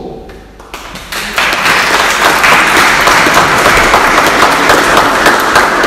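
Small congregation applauding, hand claps starting about a second in and quickly building to a steady, loud round of applause.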